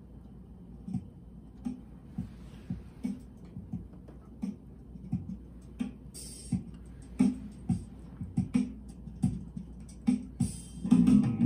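Music from a vinyl record playing on a BSR C129R record changer through the console stereo's speakers: a steady drum beat, about three beats every two seconds, growing louder. A fuller band comes in near the end.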